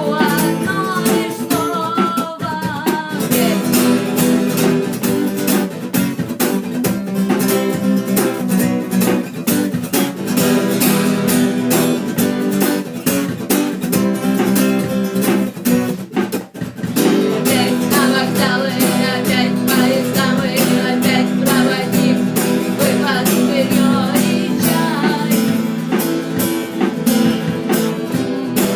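Acoustic guitar strummed in a steady, driving rhythm, with a woman's voice singing over it near the start and again through much of the second half. The playing drops out briefly a little past the middle.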